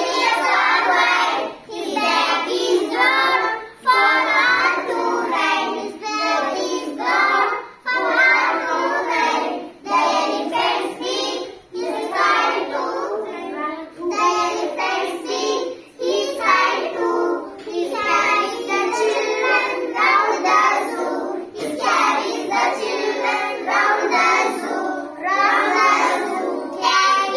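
A chorus of young schoolgirls chanting an English poem in unison, in a sing-song rhythm, with a short pause between lines about every two seconds.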